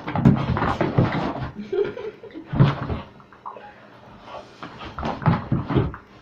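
A dog in rough play, rolling and scrabbling on a carpeted floor: a run of knocks, thumps and scuffles, with the dog's grunting and panting mixed in. The loudest thumps come about a third of a second in, near the middle and again near the end.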